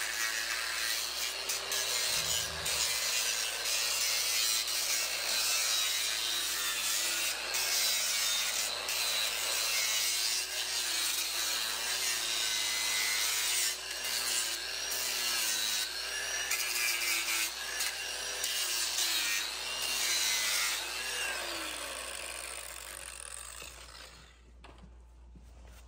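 Handheld angle grinder with an abrasive disc grinding a horse's hoof, its motor pitch wavering as the disc is pressed against and eased off the hoof. The grinding fades out near the end.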